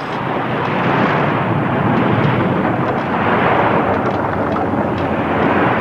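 Loud, continuous rumbling roar of a glacier face calving and collapsing into the sea, with churning water.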